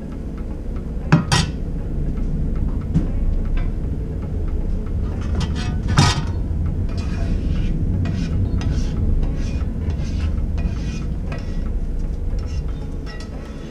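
Metal kitchen utensils knocking and clinking against a soup pot, with two sharp knocks, one about a second in and one at about six seconds, and scattered lighter clinks. A steady low rumble runs underneath and eases near the end.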